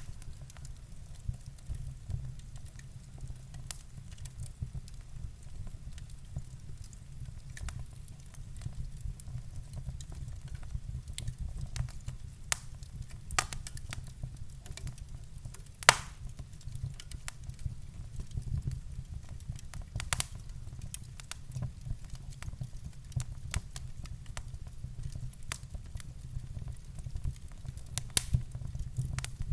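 Fire burning in a fireplace, crackling with irregular sharp pops over a steady low rumble; the loudest pop comes just past halfway.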